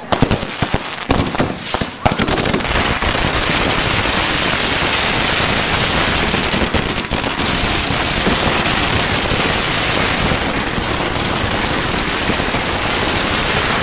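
Firecrackers going off: a few separate sharp bangs, then from about two seconds in a dense, unbroken rapid crackle, like a long string of firecrackers burning through.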